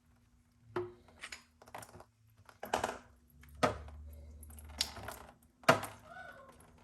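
Hard plastic parts of a water filter housing being handled: a string of about seven separate sharp clicks and knocks at irregular intervals.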